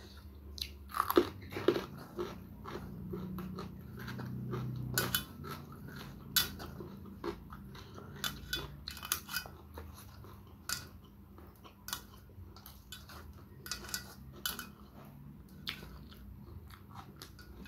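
Close-up eating sounds of a person eating rice and salted fish by hand: chewing with many short crisp crunches and mouth clicks, the loudest about a second in, and occasional light taps on a steel plate.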